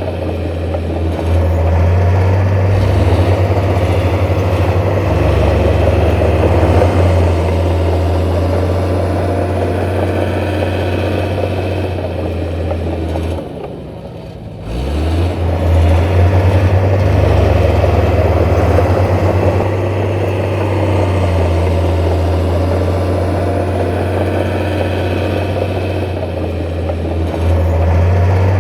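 Heavy diesel engine of earthmoving machinery running steadily under load. It drops off briefly about halfway through, then picks back up.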